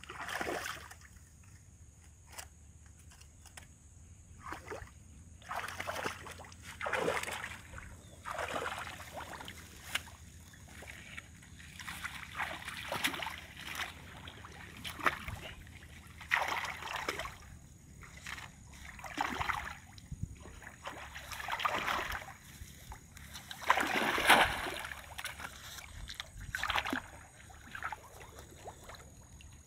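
Shallow water splashing and sloshing in irregular bursts every second or two as someone wades through it and works woven bamboo fish traps down into the water. The loudest splash comes about three quarters of the way through.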